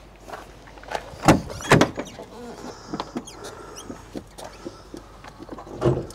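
Driver's door of a Peugeot Boxer-cab camper van being unlatched and opened: two sharp clacks about a second in, then quieter clicks and rattles as the cab is reached into.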